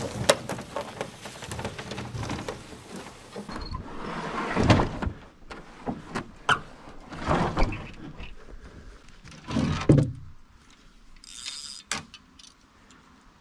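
A small rowboat's hull scraping and grinding over dirt as it is dragged in several pulls, with scattered knocks and thunks against the hull; it goes quieter near the end.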